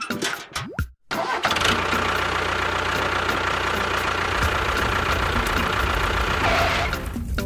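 A small motor starts about a second in and runs steadily, then stops near the end; background music plays before and after it.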